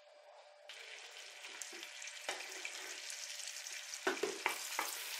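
Butter and oil sizzling in a frying pan as the fat heats for a roux, starting about a second in and slowly growing louder. Near the end come a few knocks of a wooden spoon on the pan as flour is tipped in.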